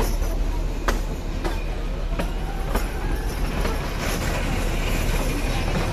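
Narrow-gauge passenger train running slowly, heard from an open coach window: a steady rumble of the coach with sharp clacks of the wheels over the rail joints every second or so.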